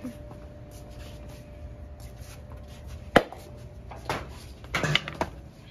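A single sharp knock about three seconds in, then a few shorter clatters and rustles near the end.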